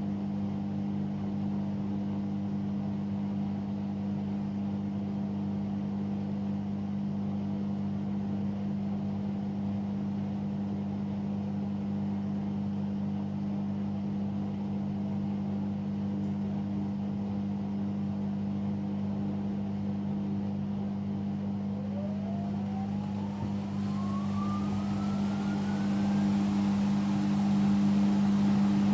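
Hoover Sudslock washing machine on its final spin: a steady motor hum, then about three quarters of the way through a rising whine as the spin speeds up and the sound grows louder.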